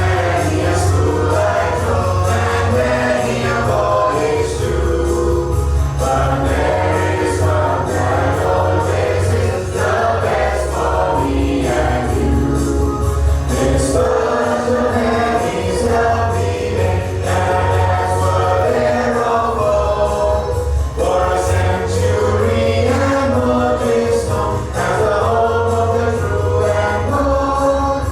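A song sung by a group of voices in a choir style, over a steady bass accompaniment.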